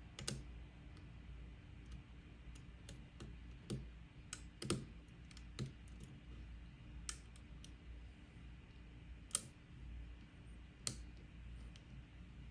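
Small, irregular clicks and ticks of a Sparrows Monkey Paw pick working the pins of a pin-tumbler challenge lock under light tension, about one to two clicks a second, some louder than others.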